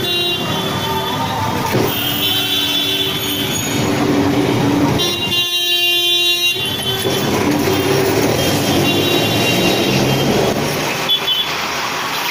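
Busy street traffic heard from a moving tram, with vehicle horns honking again and again. The loudest is a horn blast of about a second around halfway.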